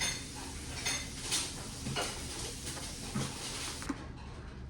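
Small plastic Lego pieces clicking and clattering as they are handled and pressed together, with several short sharp clicks at irregular intervals.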